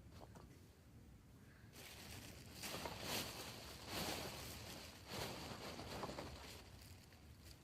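Rustling handling noise that starts about two seconds in and swells in four or five surges over about five seconds before fading.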